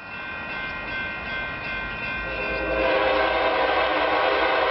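Locomotive horn of an approaching Union Pacific local freight, sounding a steady chord that swells much louder about two to three seconds in and is held, over the low rumble of the train.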